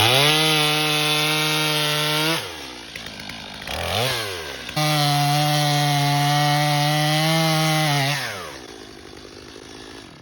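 Two-stroke chainsaw held at full throttle, cutting the bowl out of a winged elm stump. It drops back between two long full-throttle runs, with a short blip of throttle in the gap, then winds down to idle near the end.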